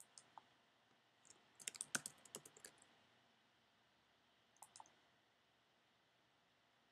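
Faint computer keyboard and mouse clicks: a mouse click or two at the start, a quick run of keystrokes from about one and a half to three seconds in as a short word is typed, then a couple of clicks near five seconds.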